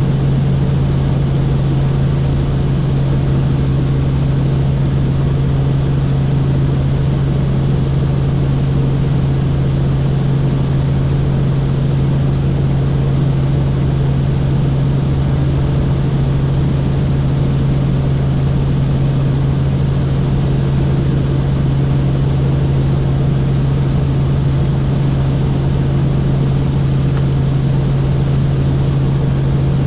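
Helicopter in steady flight: a loud, even drone of engine and rotor with a strong steady low hum.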